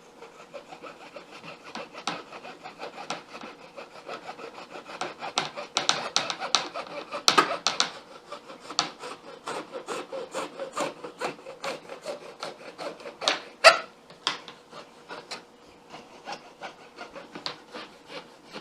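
Small hand razor saw cutting through a folding door's top rail, in steady back-and-forth strokes, with a few harder strokes partway through.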